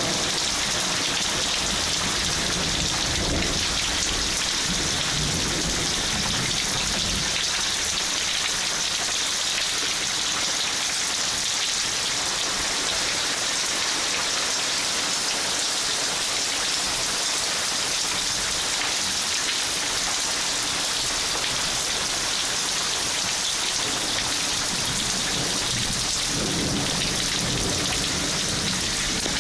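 Heavy downpour falling on foliage, ground and standing water, a steady dense hiss. A low rumble of thunder comes a few seconds in and again near the end.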